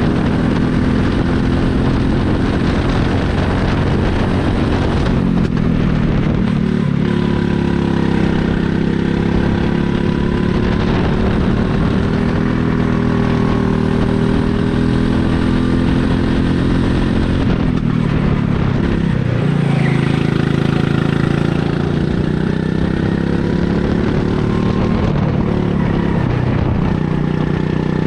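Small single-cylinder rental go-kart engine at racing speed, heard from the driver's seat, its pitch dropping off and climbing again several times as the throttle is lifted for corners and reapplied.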